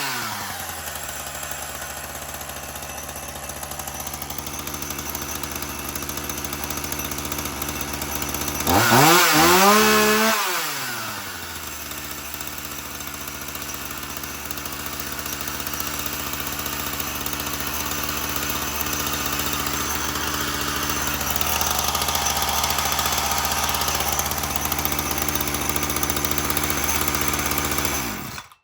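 Ryobi two-stroke gas chainsaw idling, revved up once about nine seconds in and dropping back to a fast idle, which the owner thinks is set too high. The engine cuts off suddenly near the end.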